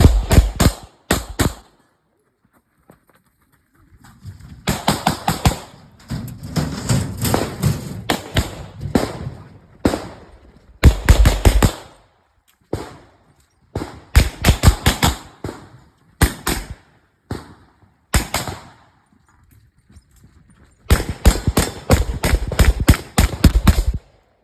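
Pistol shots fired rapidly in an IPSC course of fire. The shots come in quick strings, often pairs close together, broken by short pauses of a second or two where the shooter moves or reloads. Each shot is sharp and echoes briefly.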